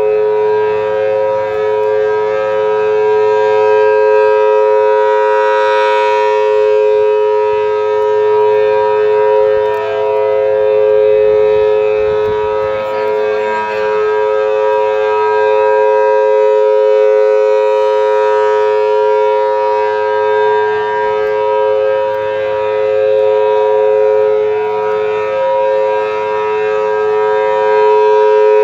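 Federal Signal Thunderbolt 1000T tornado siren sounding a steady alert for its monthly test: two steady tones held together, swelling and fading in loudness every several seconds as the rotating head sweeps past.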